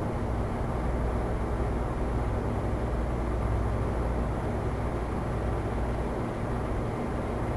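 Steady low rumbling background noise, even throughout, with no distinct knocks, whooshes or voices.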